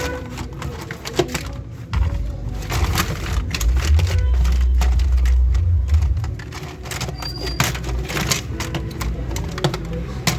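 Irregular clicks and light knocks of small hard plastic parts, a toy gun being handled and taken apart, over a steady low rumble that is strongest for a few seconds from about two seconds in.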